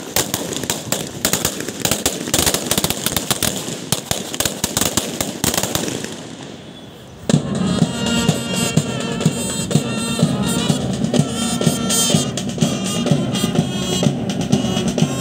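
Feu de joie: a rapid, ragged ripple of blank rifle shots running along the police ranks, dying away after about six seconds. About seven seconds in, a brass band strikes up and keeps playing.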